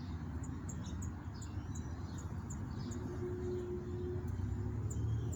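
Small songbirds chirping, many short high chirps scattered throughout, over a steady low rumble of wind on the microphone.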